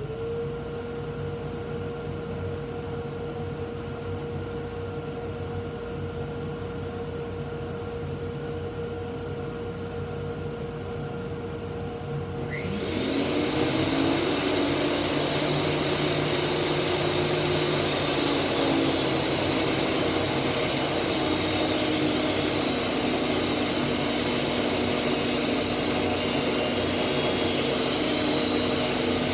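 Woodshop machinery: a 1.5 hp dust collector and a Grizzly G0959 12-inch helical-head planer-jointer. One machine hums steadily, then about thirteen seconds in a second one starts up and the noise gets much louder, with a steady rushing sound and a high whine on top.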